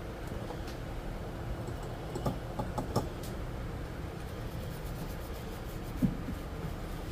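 A few light clicks and taps of small tools being handled at an electronics repair bench, bunched about two to three seconds in, with a single soft knock near the end, over a steady low hum.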